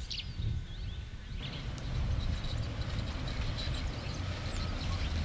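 Small birds chirping, with many short high chirps and quick sweeping notes, over a steady low rumble.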